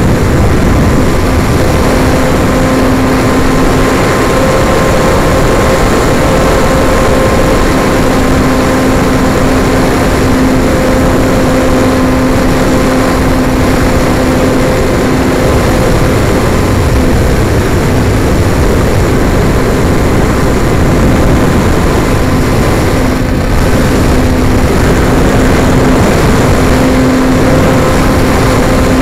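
Onboard sound of an RC airplane in flight: its motor and propeller running at a steady pitch, under heavy wind rush on the onboard camera's microphone.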